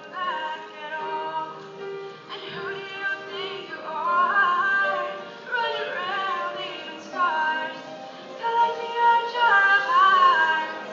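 A solo singer performing a melody into a microphone, with musical accompaniment, holding long notes that waver in pitch.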